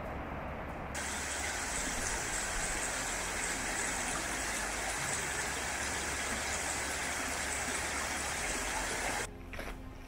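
A small waterfall cascading down a rocky stream bed: a steady rush of falling water that starts suddenly about a second in and stops abruptly near the end, followed by a few crunching steps on gravel.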